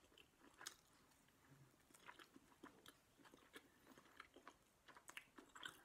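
Faint chewing: a person quietly chewing a mouthful of pan-fried chive pancake, heard as scattered soft clicks of the mouth.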